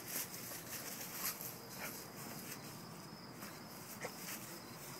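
An English bulldog and a brindle puppy scuffling as they play-wrestle on grass and dry leaves: quiet, scattered rustles and paw steps over a steady high hiss.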